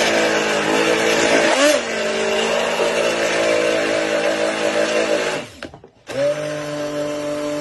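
Immersion blender running in a plastic jug of chocolate ganache, emulsifying it. Its motor pitch dips briefly under load a couple of seconds in. Near the end it switches off for about half a second and starts up again.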